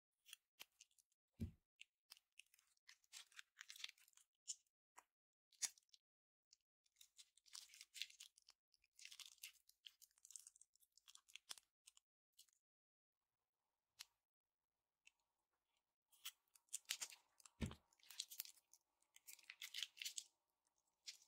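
Quiet crinkling and rustling of small plastic piping bags and slime being handled, in irregular bursts with scattered sharp clicks, and a soft thump twice, about a second and a half in and again near the end.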